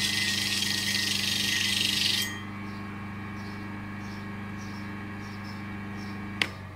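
Sheep-shear sharpening grinder: a shearing cutter grinding on the spinning sand-coated disc with a steady hiss that stops about two seconds in as the cutter is lifted off, leaving the electric motor humming steadily. Near the end a sharp click, and the hum cuts off.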